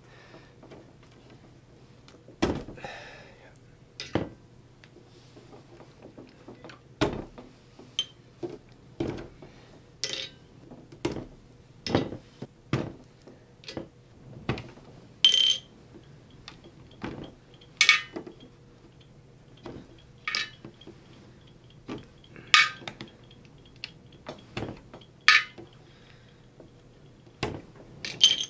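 Plastic knobs being pulled off a DJ mixer's control shafts and dropped into a stainless steel parts tray: a string of irregular clicks and knocks about every second. Several are bright metallic clinks that ring briefly.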